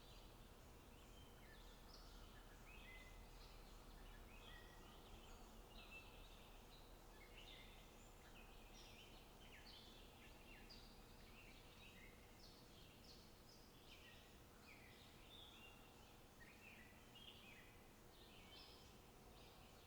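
Faint birdsong: many small birds chirping continuously in short, quick notes, over a quiet outdoor hiss.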